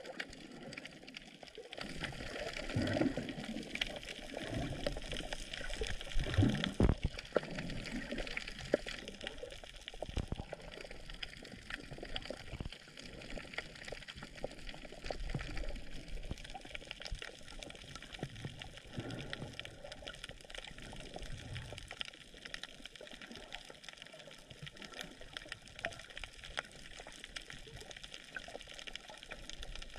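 Seawater sloshing and gurgling close to the microphone, with many small crackling clicks throughout and louder swells in the first third.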